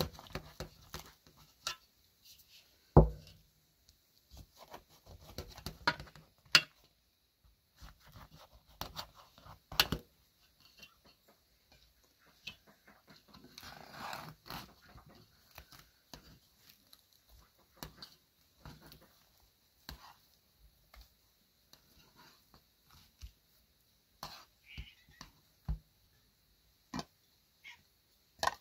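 Kitchen knife cutting through the crisp baked filo crust of a spinach byrek in a metal baking pan: scattered crackles and clicks as the blade goes through the pastry and knocks on the pan, with a louder thump about three seconds in.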